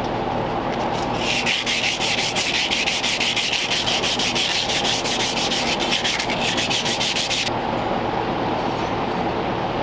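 Sandpaper worked back and forth by hand around a metal rod held in a vise, in quick even strokes that start about a second in and stop suddenly after about six seconds. The rod is being sanded down a fraction so that a tight fork will slip onto it instead of needing an interference fit.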